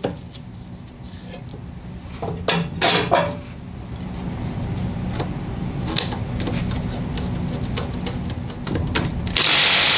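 Light clicks and knocks of metal parts being handled, then near the end a loud, even hiss lasting about a second: aerosol chain wax being sprayed onto the part.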